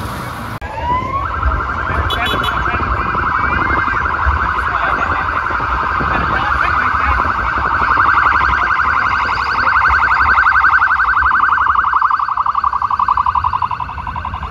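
A siren winds up about a second in, then holds one high pitch with a fast flutter, growing louder through the second half over low street noise.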